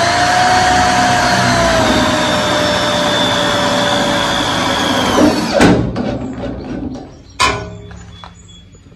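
Cordless drill driving a self-tapping screw through the sheet-metal inner tail panel: a steady motor whine that drops a little in pitch about two seconds in, cutting off about five and a half seconds in, followed by two sharp knocks.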